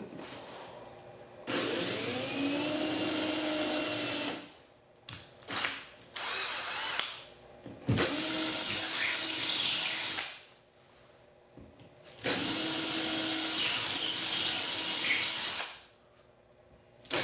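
Cordless drill boring three mounting holes into a wall: three runs of about three seconds each, the motor whining up to speed at the start of each, with a few short trigger blips between the first and second hole.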